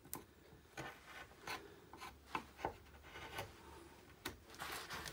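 Hand carving tool pushed by hand into alder wood, slicing out chips in a series of short, faint scraping cuts, about a dozen, irregularly spaced.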